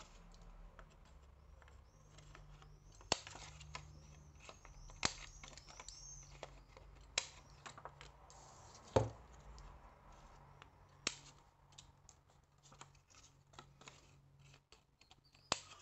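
Old handheld corner-rounder punch clicking as it cuts rounded corners off scrapbook paper: several sharp clicks a second or two apart, with paper rustling and being handled between them.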